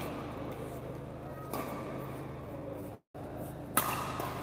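Badminton rally: racket strings striking the shuttlecock, a softer hit about a second and a half in and a sharp, louder hit near the end, over a steady low hum of the hall. The sound cuts out for a moment about three seconds in.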